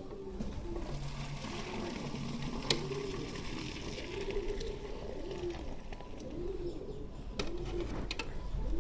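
A dove cooing over and over, in short rounded notes about a second apart. Behind it runs a steady hiss with a few clicks, fitting milk squirting into a metal pail during hand milking.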